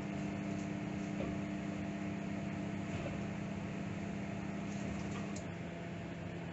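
Microwave oven running with a steady electrical hum while heating water. About five and a half seconds in there is a click, and the hum turns slightly lower and quieter.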